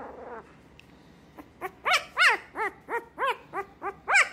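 Very young puppy giving a run of high little yips, short calls that rise and fall in pitch, about two to three a second, starting about a second and a half in.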